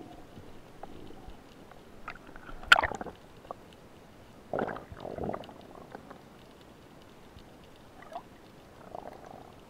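Underwater sound during a spearfishing dive. A single sharp snap a little under three seconds in, the speargun being fired, is followed about two seconds later by two short rushes of bubbling water, with faint clicks throughout.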